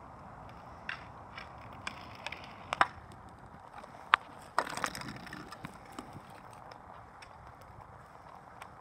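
Inline skate wheels rolling on asphalt, with a string of sharp clacks from a hockey stick striking a street hockey ball and the pavement while stickhandling. The loudest clack comes about four seconds in, with a quick cluster of them just after.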